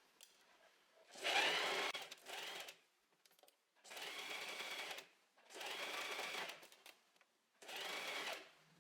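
Domestic sewing machine stitching in five short runs, each stopping after about a second, with brief pauses between; the first run, about a second in, is the loudest.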